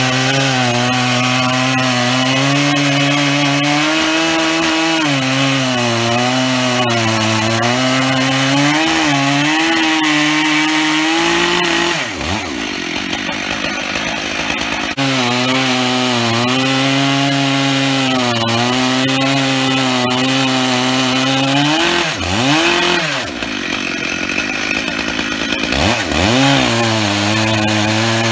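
Stihl MS 880 two-stroke chainsaw, on a 105 cm bar with 3/8 chain, running under load as it rips along an oak log in a chainsaw mill, its pitch wavering with the load. About twelve seconds in the revs sag for a few seconds, then pick up again; later they dip and recover twice more.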